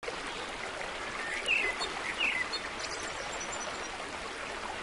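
Steady rushing noise like a flowing stream, with two short bird chirps about one and a half and two seconds in.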